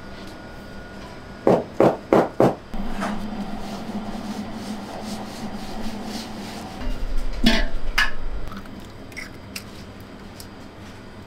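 Four quick knocks, then a hand rubbing flour through a wooden-rimmed sieve, a steady scraping for several seconds. Near the end of the rubbing come a couple of sharp knocks as an egg is cracked over a steel mixer bowl.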